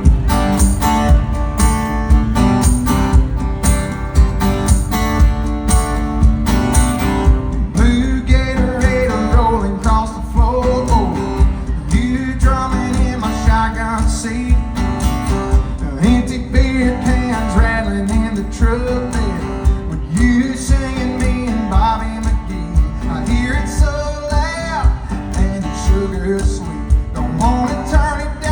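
Country song: strummed guitar over a steady beat, with a singer's voice coming in about eight seconds in and carrying the melody.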